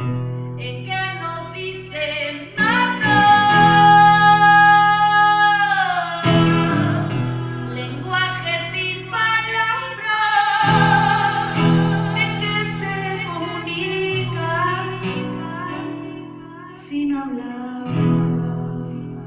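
A woman singing over guitar accompaniment, holding a long note about three seconds in and another about ten seconds in.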